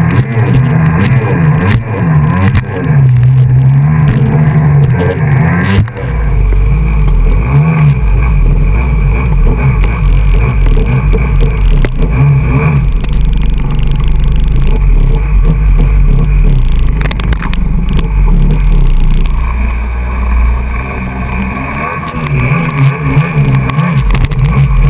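Kawasaki SX-R 800 stand-up jet ski's two-stroke engine revving up and down as it runs over the water, with wind and spray buffeting the microphone. After a cut about six seconds in, a deep rumble of wind and water covers most of the engine sound, and the revving comes through again near the end.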